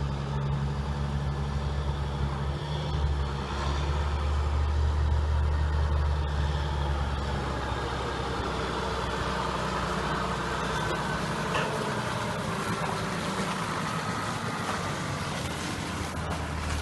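John Deere T670i combine harvester running while cutting barley, heard from inside its cab. A steady low engine drone is strong at first and drops away about seven seconds in, leaving an even mechanical hum.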